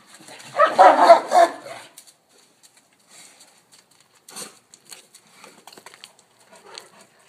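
Central Asian Shepherd dog barking loudly for about a second and a half, starting about half a second in, followed by faint scuffling of paws on dirt.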